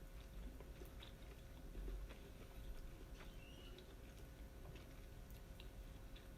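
Faint close-up chewing of grilled yakitori chicken, with small scattered wet clicks over a low steady hum.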